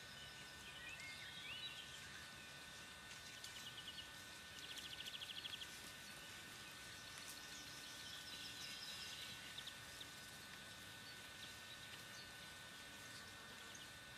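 Faint outdoor birdsong over a steady hiss: a few short rising chirps about a second in, then a rapid trill around four to five seconds in, and more scattered chirps a few seconds later, with a thin steady high-pitched whine throughout.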